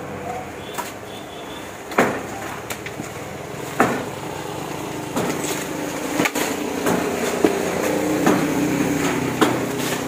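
Sharp, irregular knocks, roughly one a second, over a steady hum that grows louder about halfway through.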